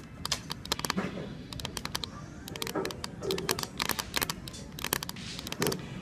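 Long fingernails tapping on a hard, polished tabletop: many quick, irregular sharp clicks.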